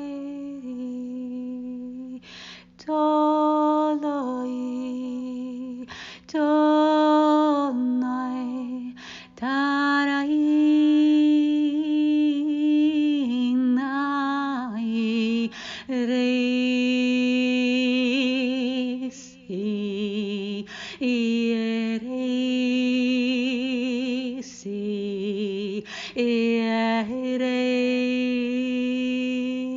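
A woman singing long wordless notes, one at a time with short breaks for breath, sliding between pitches with a slight waver, over a steady low drone.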